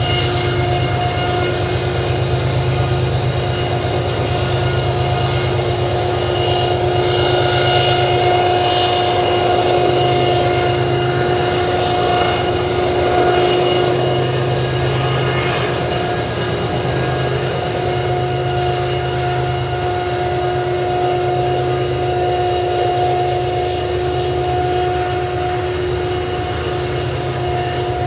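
Loaded coal hopper cars rumbling past on the rails, under a steady high whine from a GE diesel locomotive that holds one pitch throughout.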